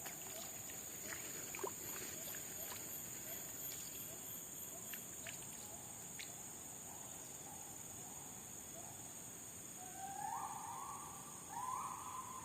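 Swamp-forest ambience: a steady high-pitched insect drone, with a bird giving a few soft calls and then two louder rising calls near the end.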